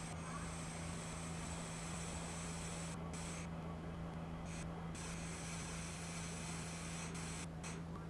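A steady low electrical hum with a soft hiss over it; the higher part of the hiss drops out briefly a few times.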